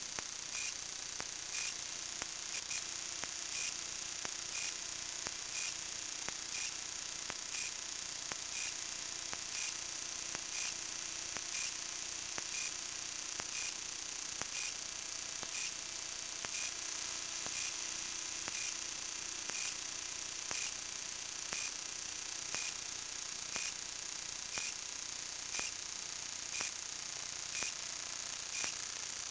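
Steady high-pitched hiss with a regular ticking, roughly one to two ticks a second, from a camera rig hanging on a kite line high above the water.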